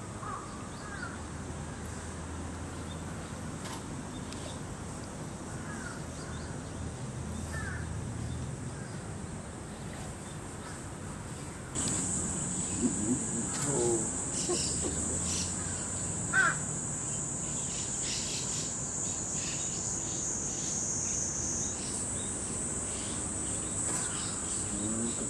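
Outdoor summer ambience: scattered short bird calls, then about halfway through a high, steady insect drone starts abruptly and carries on under more calls.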